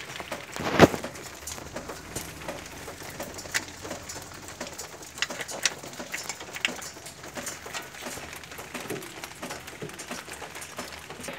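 Handling noises as a ribbed poly-V accessory belt is worked back onto the engine's pulleys by hand: one sharp knock about a second in, then scattered light clicks.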